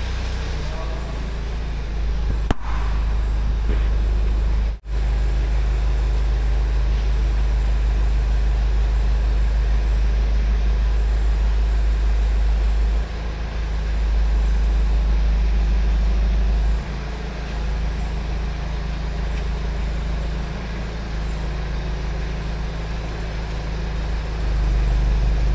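Forklift engine running under load as it lifts and carries a truck cab, a steady low drone whose level steps down and back up a few times. The sound breaks off briefly twice in the first five seconds.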